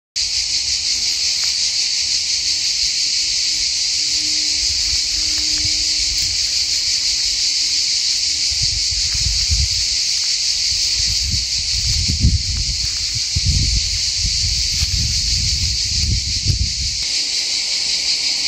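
A steady, loud chorus of insects chirring, starting just after the start, with bursts of low rumble in the second half.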